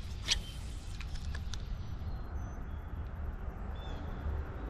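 Wind rumbling on the microphone, with a few light clicks in the first second and a half as a spinning reel is cranked to retrieve a lure.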